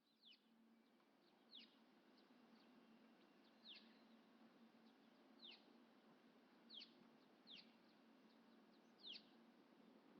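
Faint bird calls: about six short, high notes, each sliding downward, one every second or two, over a faint steady low hum.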